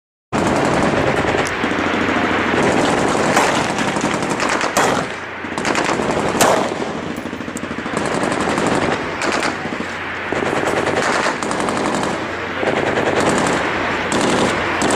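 Heavy sustained automatic-weapons fire, a dense stream of rapid overlapping shots with a few louder cracks standing out, cutting in abruptly about a third of a second in.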